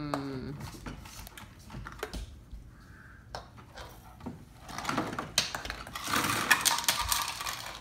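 Small hard toy dishes and cups clicking and clattering as a toddler plays with a toy kitchen, with a denser, noisier stretch of clatter near the end.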